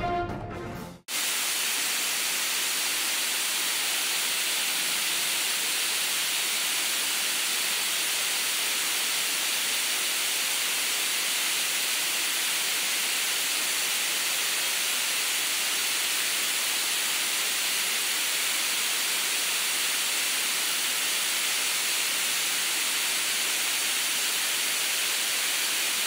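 A music jingle ends about a second in. Then a steady, even hiss continues, the background noise of an indoor swimming-pool hall.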